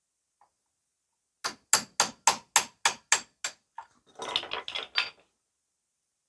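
A quick run of about nine hammer blows, about four a second, then a short clatter, as a backhoe stabilizer cylinder is knocked free.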